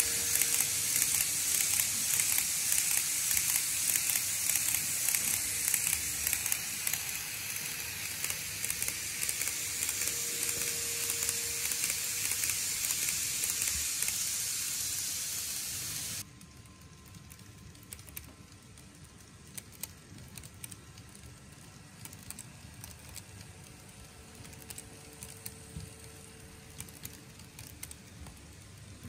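N-gauge model trains, including a TOMIX E231-series set, running on the track: a loud crackling hiss of wheels and motors passing close by, which cuts off suddenly about halfway through to a much quieter run with scattered light clicks.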